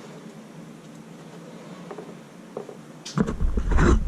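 A few faint light clicks of parts being handled, then about three seconds in a sudden loud rumbling and knocking clatter of the camera being handled and moved.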